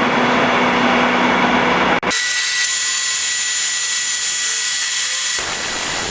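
Metal lathe rough-turning a heat-treated bronze bar: the machine runs steadily with the hiss of the cutting tool on the metal. About two seconds in the sound breaks off sharply and comes back thinner and higher, with steady high whines and no low rumble. It fills out again near the end.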